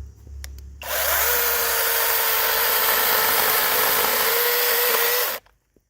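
Battery-powered 6-inch brushless mini chainsaw running at full speed and cutting through a fallen branch, with a steady motor whine over the noise of the chain. It starts about a second in and stops abruptly near the end.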